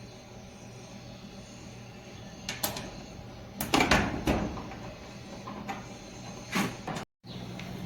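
Maytag clothes dryer running with a low steady hum and no squeal, its pulley freshly cleaned. Several knocks and clatters come about two and a half, four and six and a half seconds in, and the sound drops out for a moment near the end.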